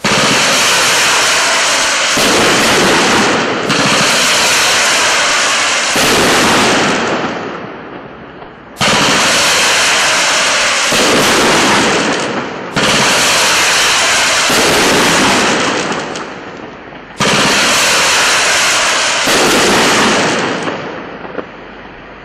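A 30-shot, 500-gram consumer fireworks cake firing: launches and aerial bursts follow so closely that they run together almost without a break, in repeated loud waves that restart several times.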